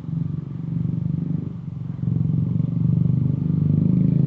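Honda ADV150 scooter's single-cylinder engine running under throttle while riding slowly. It gets louder just after the start and again about two seconds in.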